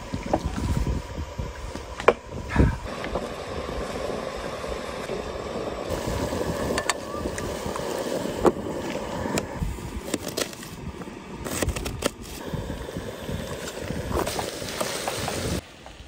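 Sausage and potatoes sizzling in a frying pan on a camp gas stove, with scattered clinks of a utensil against the pan.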